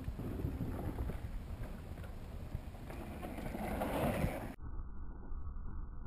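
Wind buffeting the microphone, with a mountain bike's tyres rolling and crunching over the dirt trail as the rider passes close, swelling about four seconds in. Just after, the sound turns abruptly muffled.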